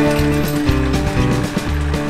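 Background music: an instrumental track with a steady, repeating bass line.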